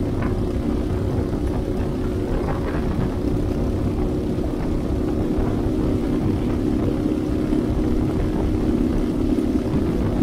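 Minimax 1100R ultralight's engine and propeller running steadily off idle during an engine break-in run, heard from the open cockpit.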